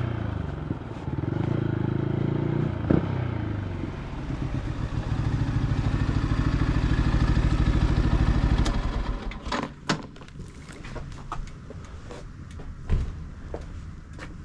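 Yamaha MT125's single-cylinder four-stroke engine through a full Akrapovic exhaust: revs falling as the bike slows, one sharp pop from the exhaust about three seconds in, then a steady idle. The engine stops a little under nine seconds in, and a few sharp clicks and knocks follow.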